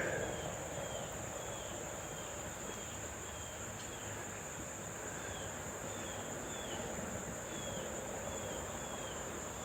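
Insects trilling in a steady high drone, with faint short chirps repeating about twice a second.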